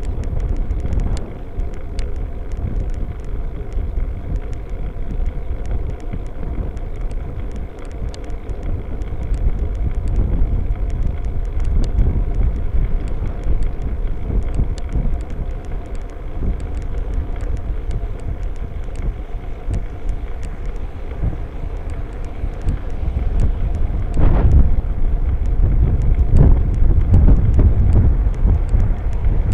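Wind buffeting the microphone of a rear-facing bicycle light camera while riding, over a steady low road rumble with scattered light ticks. A car closes in behind the bike about three-quarters of the way through, and the noise grows louder.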